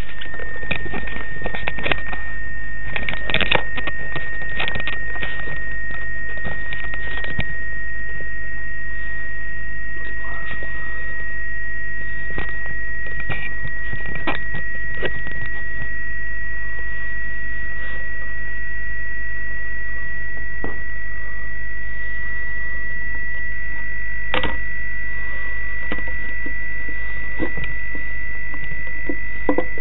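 Software-defined radio receiver audio: a steady whistle tone from a tuned carrier, drifting slowly upward in pitch, over constant hiss and a low hum. There are scattered clicks in the first several seconds and one sharp click about 24 seconds in.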